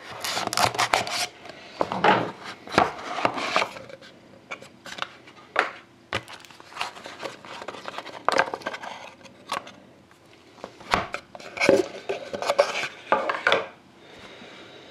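Knife slicing the seal on a small trading-card box, then the box being opened and the cards slid out and set down on a table: a string of short scrapes, slides and taps, busiest in the first few seconds and again about twelve seconds in.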